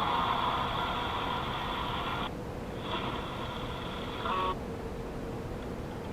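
Steady low rumble of a running car heard from inside the cabin. A brighter sound above it cuts off abruptly about two seconds in, comes back briefly and stops again about four and a half seconds in.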